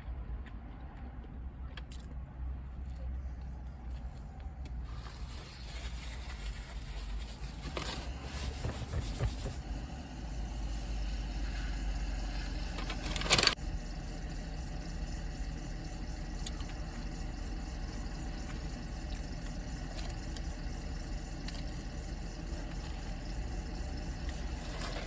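Car engine running, heard from inside the cabin as a steady low rumble, with one sharp knock about halfway through.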